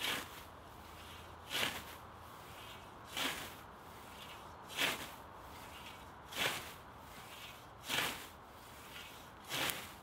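Hand-forged European-style scythe mowing tall grass: the blade swishes through the stems about every 1.6 seconds, seven strokes in a steady rhythm.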